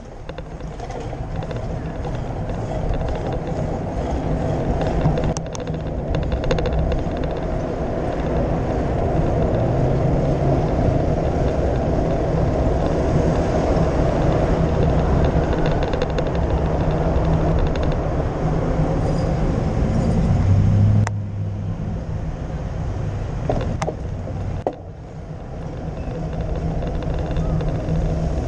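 Steady rush of wind and road noise on a bicycle-mounted camera riding through city car traffic. It drops sharply about three-quarters of the way through and builds again near the end, with a few sharp clicks.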